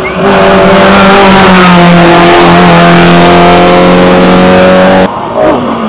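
Hillclimb competition car's engine, loud and held at high revs under full throttle as it climbs past, with a brief gear change about two and a half seconds in. The sound cuts off abruptly about five seconds in.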